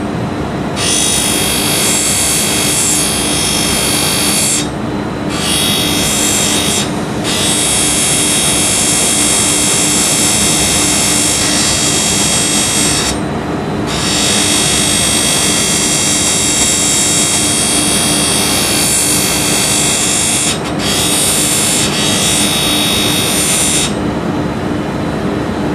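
Lapidary grinding wheel running with a steady motor hum while a gemstone on a stick is pressed against it, giving a high grinding hiss. The hiss breaks off briefly several times as the stone comes off the wheel, and stops near the end while the motor keeps running.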